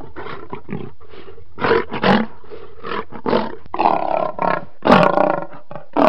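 Recorded lion roaring in a rapid series of short roars, two or three a second, with one longer roar a little after four seconds in.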